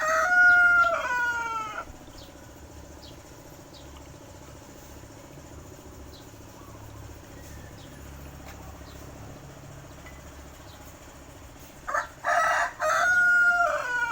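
A rooster crowing twice, one crow ending about two seconds in and another near the end, each closing on a drawn-out falling note. A faint steady hum runs between the crows.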